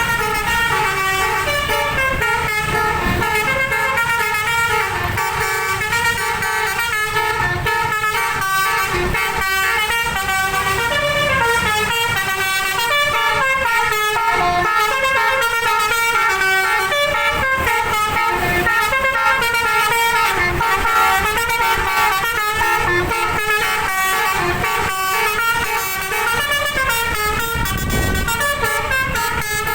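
A bus's 12-trumpet "basuri" telolet air horn playing a koplo-style tune: a long run of quick, stepped notes sounded in chords, over a low rumble.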